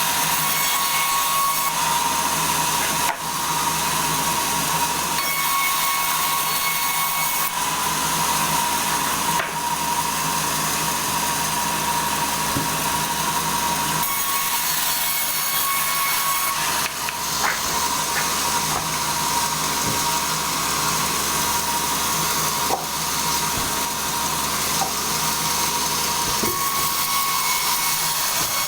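Sawmill blade cutting steadily through a log, with a steady whine over the noise of the cut and a few brief dips in loudness.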